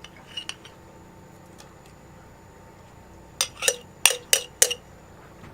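A metal spoon clinking against cookware while oil is being spooned into a frying pan: a couple of light taps, then about a second later a quick run of five sharp, ringing clinks, roughly three a second.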